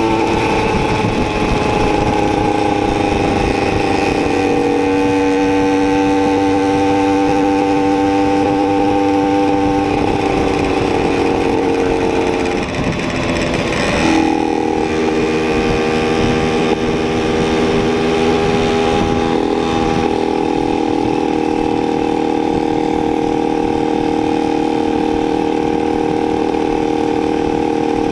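Simson moped's two-stroke single-cylinder engine running at steady riding revs, its pitch stepping a few times as the rider shifts, with a brief easing off the throttle about halfway through before pulling again. Wind noise on the handlebar-mounted camera runs underneath.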